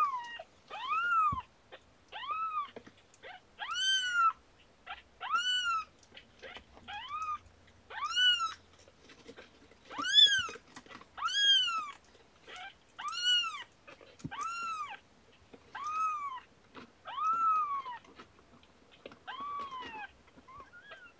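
A kitten about two weeks old crying with repeated high-pitched meows, roughly one a second, each call rising and then falling in pitch.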